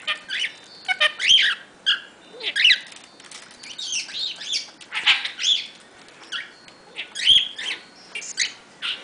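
Blue budgerigar chattering: a quick run of short squeaky chirps and warbles that glide up and down in pitch, in little phrases with brief pauses between them.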